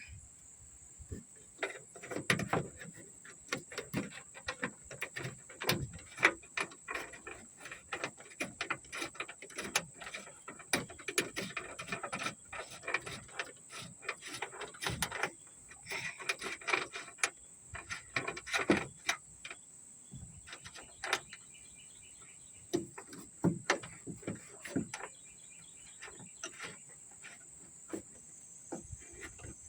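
Irregular metal clicks, taps and rattles as a new trunk latch is set in place and its 8 mm bolts are started with a socket, over a steady high chirring of insects.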